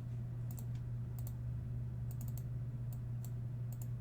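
Light, crisp computer clicks, a dozen or so, many coming in quick pairs, over a steady low electrical hum.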